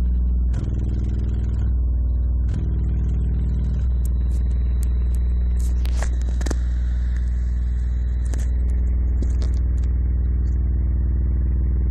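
JBL 1000-watt subwoofer playing a very low bass tone of around 20 Hz with its cone in large excursions, heard as a steady deep drone with buzzy overtones that shift slightly every second or so. Two sharp knocks come about six seconds in.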